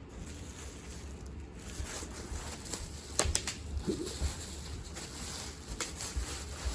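Faint handling of slot-car packaging: light rustling and scraping, with a couple of sharp clicks about three seconds in.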